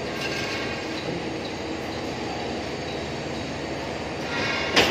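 Steady mechanical drone, with one sharp metallic clank near the end from a steel rolling scaffold as a worker climbs onto it.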